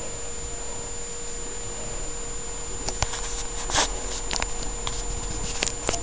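Scattered sharp taps and clicks, a handful of them from about halfway through, the loudest a short knock just before the two-thirds mark, over a steady high whine and hum with hiss.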